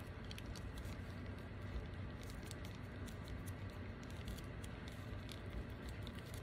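Faint crinkling and clicking of a small plastic zip-lock bag being worked at by fingers, trying to find the seam and pull it open.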